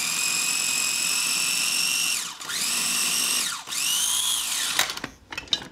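Small food processor motor pulsed three times as it chops herbs, capers and cornichons: a high whine that winds up, holds, then falls away as the blades coast down. The first pulse lasts about two seconds, the next two about a second each, and a few light clicks follow near the end.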